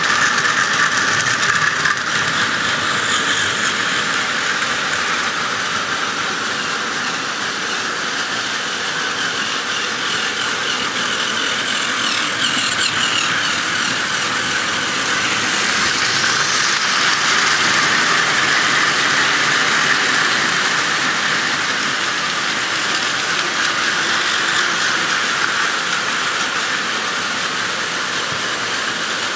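Several Plarail battery-powered toy trains running at once on plastic track, making a steady whir from their small gear motors and wheels.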